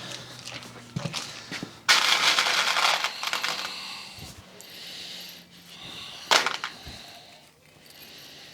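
Sheet-metal handling noise: a few light clicks, then a loud scraping, crinkling burst about two seconds in lasting about a second, and a shorter sharp burst later on.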